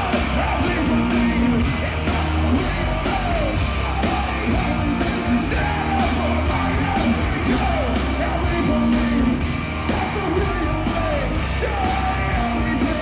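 Hard rock band playing live at full volume: distorted guitars, bass and drums under a singer's vocals, as heard in the hall.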